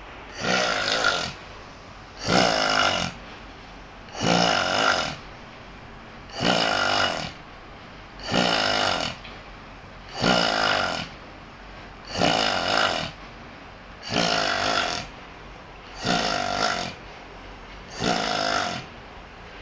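A man snoring loudly in his sleep, a snore of about a second roughly every two seconds, ten in a row with an even rhythm.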